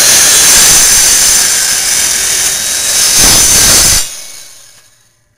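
Handheld circular saw running at full speed with a high whine as its blade cuts into a coconut's shell. About four seconds in the trigger is released and the motor winds down to a stop.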